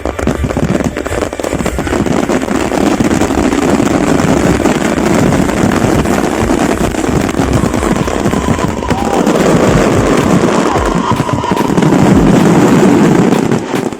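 Fireworks and firecrackers going off in a dense, continuous rapid crackle, with a few deeper bangs mixed in.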